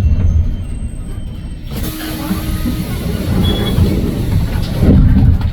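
Cabin noise of a 2022 Hyundai New Super Aerocity city bus with a C6AF CNG engine on the move: a steady low engine and road rumble. About two seconds in, a loud hiss comes in and lasts about three seconds.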